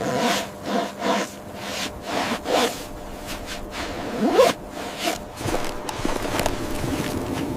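A zipper being pulled in a series of short strokes with fabric rustling; one longer rising zip about four seconds in is the loudest.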